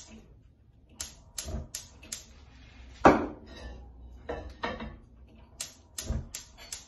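Gas hob's electric igniter clicking in quick runs of four or five, about two or three clicks a second, as the burner under the frying pan is lit. About three seconds in, the frying pan clanks down hard on the burner grate, followed by a couple of lighter knocks.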